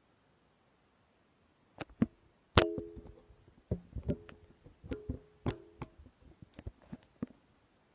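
Irregular knocks and clanks, starting about two seconds in, several of them leaving a brief ringing tone, as of hard objects being struck or handled.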